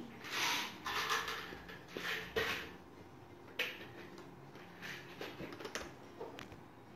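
Felt-tip markers scribbling on paper in short scratchy strokes, with small clicks of markers being handled in a plastic marker case.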